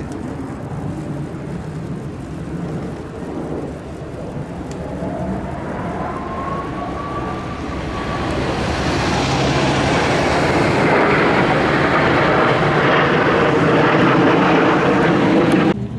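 Formation of Kawasaki T-4 jet trainers flying overhead, their twin turbofan engines making a steady jet roar. The roar swells louder over the second half and stops abruptly near the end, and a faint rising whine sounds about midway.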